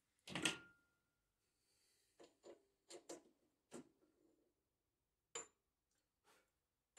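Sharp clicks and knocks of hand-worked metal parts on a Super 7 hobby lathe, with the machine stopped: one louder knock just after the start, then about seven lighter clicks spread through the rest.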